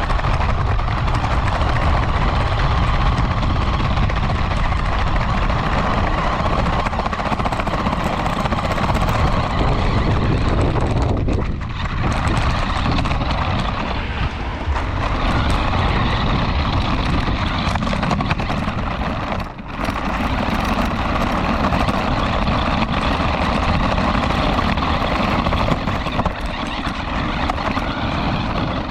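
Radio-controlled car running at speed, heard from a camera mounted on the car itself: a steady buzzing motor with rumbling, rattling wheel noise that briefly drops away twice.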